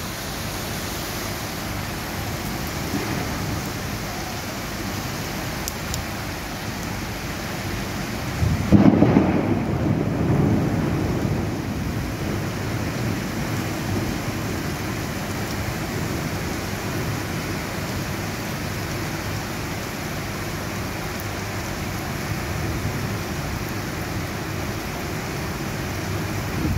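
Heavy rain falling steadily. About nine seconds in comes a loud clap of thunder, which rumbles on and dies away over the next few seconds.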